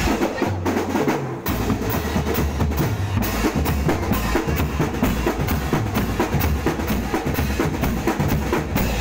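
Marching drum band playing: bass drums and snare drums beating a fast, steady march rhythm.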